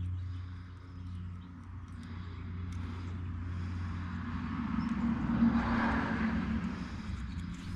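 A car driving past on a nearby road, its tyre and engine noise building to a peak about six seconds in and then fading.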